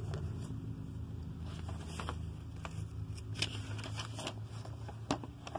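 Glossy paper catalog pages being turned by hand: soft rustling with a few sharp paper snaps, over a low steady background hum.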